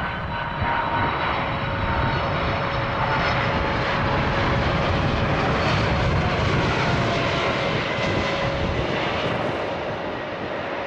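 Jet airliner flying past close by on its landing approach: a steady engine rumble and whine that swells to a peak midway and eases off near the end.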